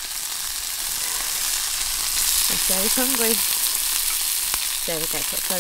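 Sausages sizzling and spitting steadily in a cast iron pan over a wood fire while they are turned with a fork and spatula.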